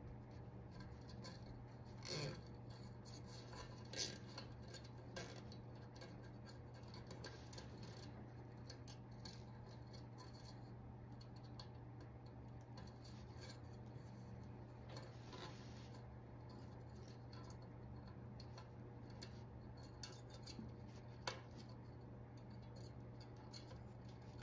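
Faint handling sounds of plastic zip ties being threaded through holes in a metal cooking pot and pulled tight: small clicks and rustles, with a few sharper taps about two and four seconds in and once near the end, over a steady low hum.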